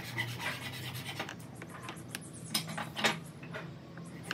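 Small pine wood pieces slid and rubbed across a wooden board as they are laid into a pattern, with a few light wooden taps about two to three seconds in as pieces are set down.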